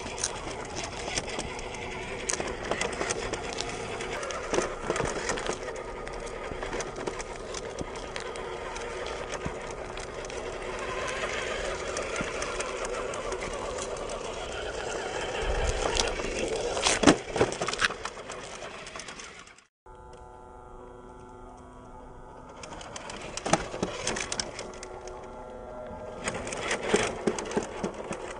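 WPL D12 RC truck's small brushed electric motor and gearbox whirring as it drives, with a few sharp knocks about two thirds of the way in. The sound drops out for an instant, then the whir comes back steadier.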